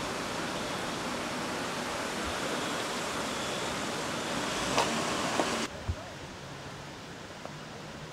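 A steady outdoor rush of noise that stops abruptly about two-thirds of the way through. After it stops, a quieter background with a faint low hum and a couple of short knocks remains.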